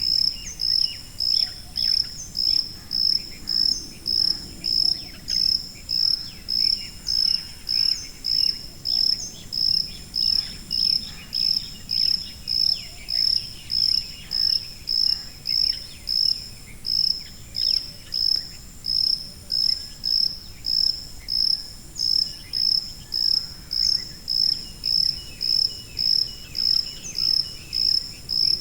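A cricket chirping steadily, one high chirp about every 0.6 seconds, pitched near 5 kHz, with fainter insect chirping behind it.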